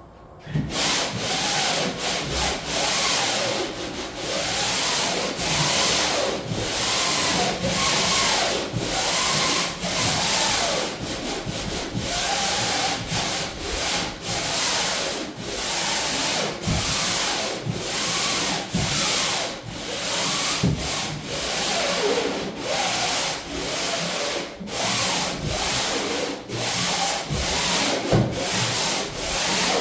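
Sandpaper rubbed over painted plywood in repeated back-and-forth strokes, a light sanding of the first coat of primer-paint. It starts about half a second in.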